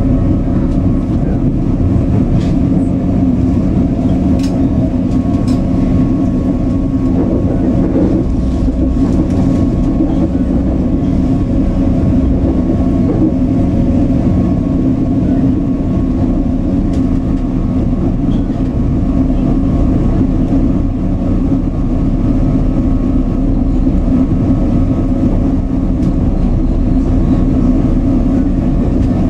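Inside a Stadler FLIRT electric multiple unit (SŽ class 510) running at steady speed: a constant rumble of wheels on the rails with a steady hum, and a few faint clicks in the first few seconds.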